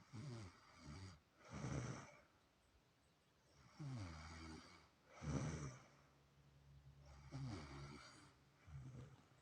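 People snoring heavily in their sleep, a loud snore every one to two seconds, several of them sliding down in pitch.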